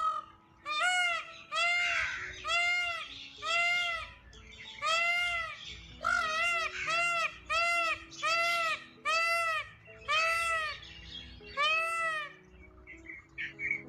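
Peacock calling in a long series of about a dozen loud, nasal calls, each about half a second long and rising then falling in pitch, in quick runs with short gaps between them. Faint background music runs underneath.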